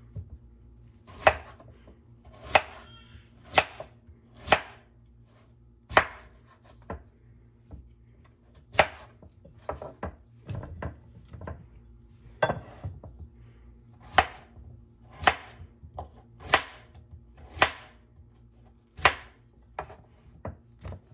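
Kitchen knife slicing peeled potatoes into rounds on a wooden cutting board: each cut ends in a sharp knock of the blade on the board, about one a second and unevenly spaced, with lighter clicks between.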